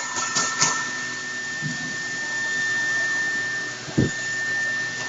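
CNC router running, its spindle giving a steady high whine over a hiss, with a few sharp clicks near the start and one low thump about four seconds in.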